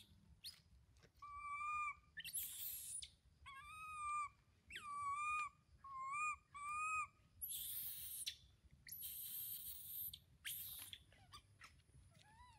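Baby long-tailed macaque crying in distress: about six short, wavering, whimpering cries over the first seven seconds, with harsh, noisy screeches near the start and again later on.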